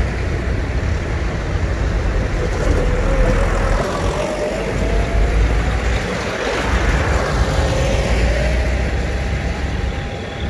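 Tractor diesel engines running as several tractors drive past one after another. There is a steady low rumble, and a faint whine drifts slowly in pitch through the middle.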